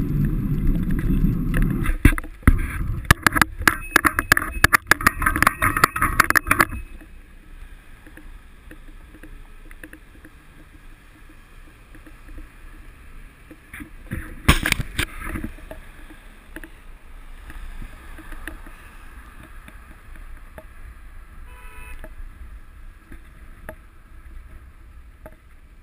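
Wind rushing over a bike-mounted action camera's microphone while cycling, with a few seconds of rattling knocks early on, then quieter road and traffic noise with one more short clatter about halfway.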